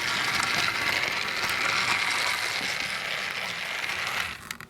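Battery-powered TrackMaster Thomas engine's small electric motor running steadily as it drives along the plastic track, then cutting off with a couple of clicks near the end.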